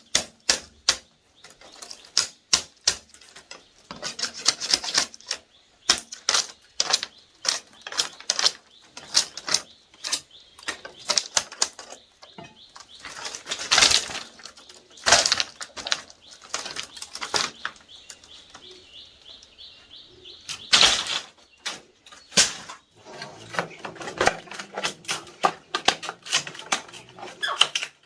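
A rapid, irregular series of sharp knocks and taps, often bunched in quick clusters, with a faint steady high tone for a few seconds past the middle.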